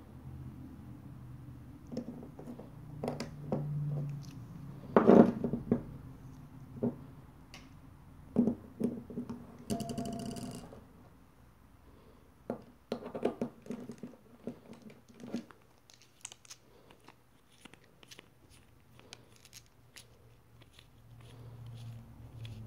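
Small clicks, taps and knocks of a metal tactical flashlight being handled on a wooden table: the three-AAA battery carrier goes into the tube and the tail cap is screwed back on. A brief whine comes about ten seconds in.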